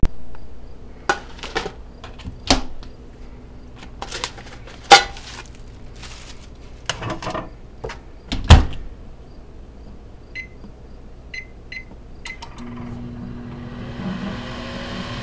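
Over-the-range microwave oven being started: several clunks and clicks as its door is handled and shut, then four short keypad beeps, and about two seconds before the end the oven starts running with a steady hum.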